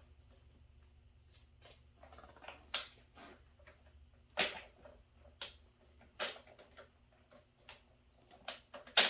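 Irregular clicks and taps of small bolts and nuts being handled and fitted while mounting a pressure washer's hose holder, with a louder clatter near the end.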